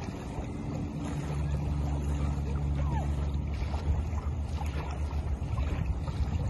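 Steady low hum of a distant engine, over wind buffeting the microphone and small waves lapping at the shore.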